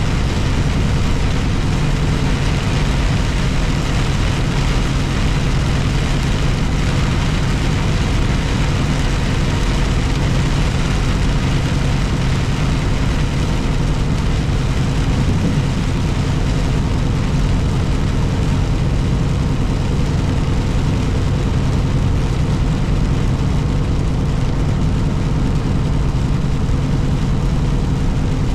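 Steady drone of a truck's engine and road noise heard from inside the cab while driving, with an even hiss over it and no change in level.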